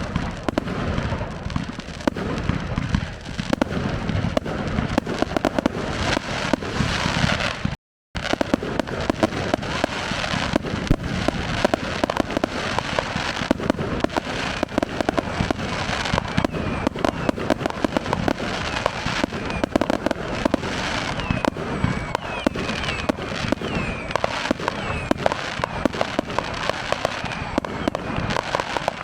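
Fireworks display going off in rapid succession: a dense, continuous stream of sharp cracks and bangs, briefly cutting out about eight seconds in.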